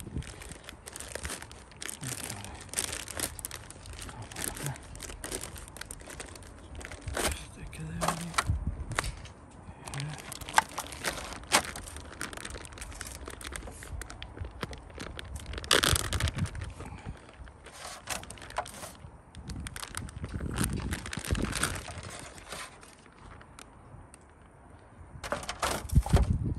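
A plastic zip-top bag of marinated meat crinkling and rustling as gloved hands handle, open and empty it. There is also crackling from the aluminium foil pan that the meat is tipped into, with a loud flurry near the end.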